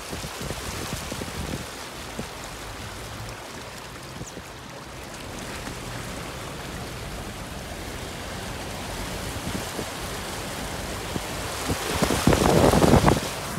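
Rushing floodwater: a steady hiss of running water, with a louder surge of noise for about a second near the end.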